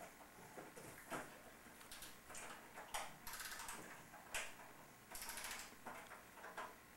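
Faint clicking and ratcheting of a wind-up toy record player being wound, in a few short irregular spells.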